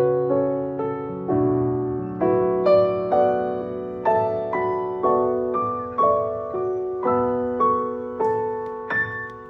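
Solo piano playing slow, gently struck notes and chords, each left to ring and die away, about two a second, growing softer near the end.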